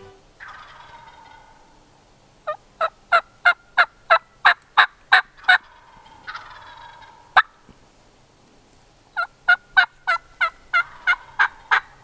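Turkey yelping: two runs of short, sharp yelps at about three a second, each led by a drawn-out, falling note, with a single sharp cluck between the runs.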